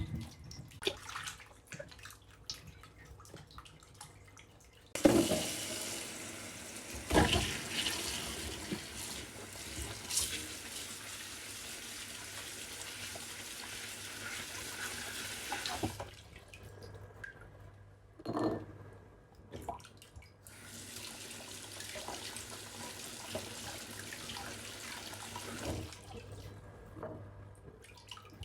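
Tap water running into a kitchen sink while something is rinsed under it, with a few knocks of things being handled. The water comes on about five seconds in, stops for a few seconds past the middle, runs again, and stops shortly before the end.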